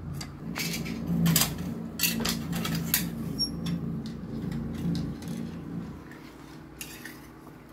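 Plastic toy cars and track pieces clicking and knocking against each other and a tiled floor in a loose, irregular string, over a low hum that drops away about six seconds in.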